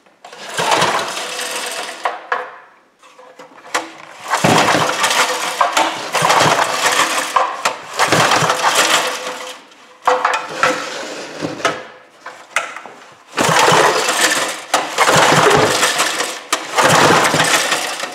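A 5 hp Briggs & Stratton flathead engine is cranked over again and again with its recoil starter rope, about seven pulls in a row. It does not fire, because the spark plug has been replaced by a compression gauge. The pulls build the gauge up to about 50 psi, a reading the owner puts down to the engine's automatic compression release.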